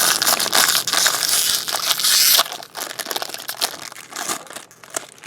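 Plastic card packaging crinkling and crackling as it is handled: dense, loud crinkling for about the first two and a half seconds, then lighter rustles and clicks.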